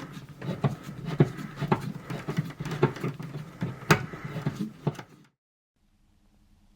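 Irregular sharp clicks and knocks over a low hum, stopping abruptly about five seconds in.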